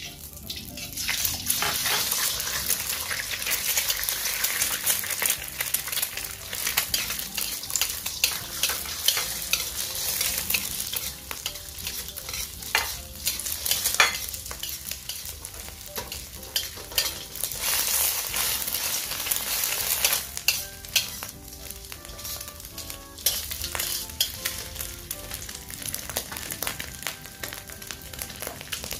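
An egg sizzling in hot oil in a steel wok as it is scrambled. A metal spatula scrapes and clinks against the wok, with one sharp knock about halfway through.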